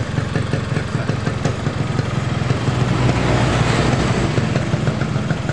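Yamaha RX-King's two-stroke single-cylinder engine idling with a rapid, even beat, swelling slightly about three seconds in.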